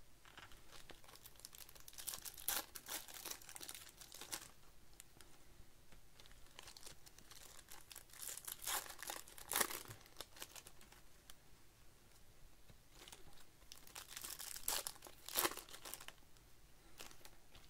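Plastic wrappers of 2024 Bowman baseball card packs crinkling and tearing as the packs are ripped open by hand, in three bursts of rustling, about two, eight and fourteen seconds in.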